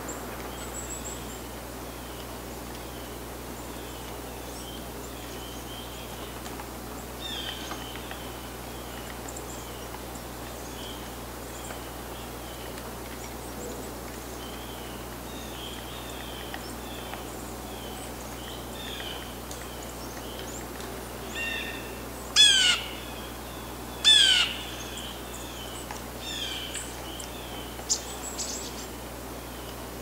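Wild birds calling: a steady run of short, high chips, with two loud, harsh calls about a second and a half apart past the middle and a few more calls near the end.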